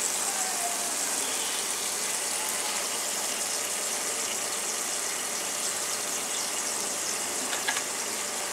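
Steady sizzling of sliced onion, capsicum and green chillies frying with sauces in a pan over a low flame, with a few faint clicks near the end.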